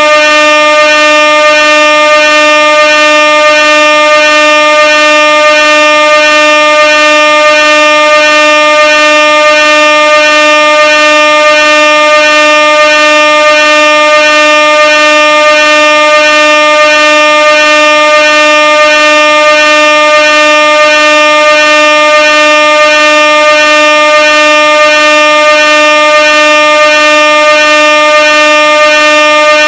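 Air horn blaring in one continuous, very loud blast at a single steady pitch, without a break.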